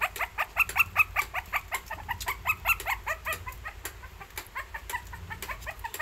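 Shih Tzu puppy whimpering in a fast, unbroken series of short high-pitched whines, about five a second.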